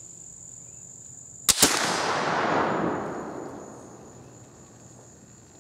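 CVA Hawken percussion black-powder rifle firing once, about a second and a half in: a sharp snap of the cap and, a split second later, the main charge goes off with a kapow, the report dying away over about two seconds. The short gap is a slight hang fire, which the shooter thinks could be moisture in the nipple or the Pyrodex charge. Crickets chirp steadily throughout.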